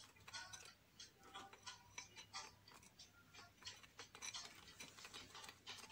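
Faint, light clicks and scrapes of a metal spoon against a bowl, several a second, as melted white chocolate and oil are stirred together.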